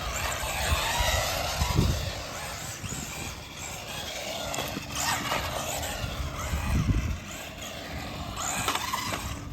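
Small electric RC car driving over rough off-road ground: its motor and gears whine, rising and falling with the throttle, over a rush of tyres on dirt. Two low thuds, about two seconds in and near seven seconds.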